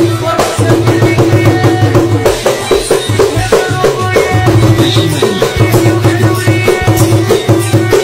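Background music: a percussion-driven track with drums and a steady beat over a sustained bass line.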